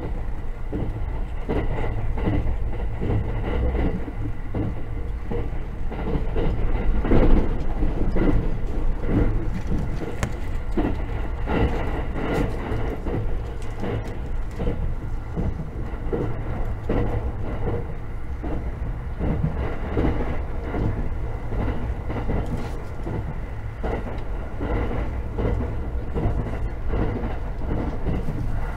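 Interior running noise of a JR 683 series 4000-subseries limited express electric train at speed, heard inside the passenger car: a steady low rumble with the repeated clatter of the wheels on the rails. It gets louder about seven seconds in.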